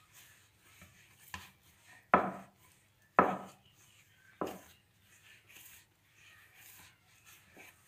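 Hands kneading bread dough on a wooden board, giving four dull thumps about a second apart in the first half, the middle two loudest.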